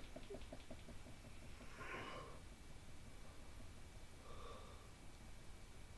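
Quiet room tone from a microphone, with a faint breath about two seconds in and another, weaker one about four and a half seconds in.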